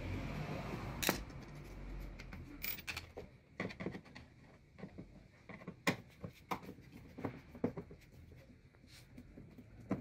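Screwdriver working the screws out of a washing machine's plastic casing: scattered clicks and scrapes of the tip in the screw heads, about ten in all, with a low rumble in the first two seconds.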